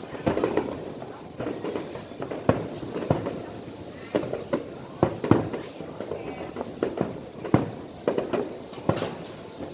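Aerial fireworks bursting in an irregular string of bangs, sometimes several a second, each trailing off in a short rumble.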